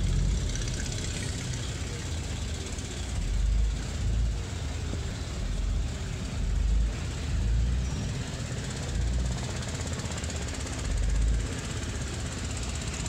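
Wind buffeting the microphone in uneven low gusts, over a steady outdoor noise.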